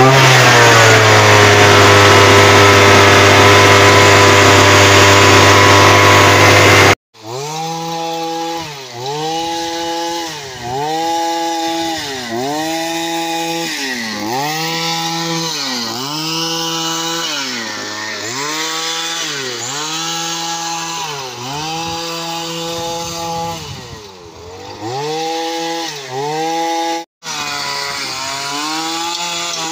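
Brush cutter engine running loud and steady at high speed with a soil-digging attachment on its shaft. After a sudden cut, a brush cutter engine is revved up and eased off about once a second as the spinning digging attachment churns loose soil.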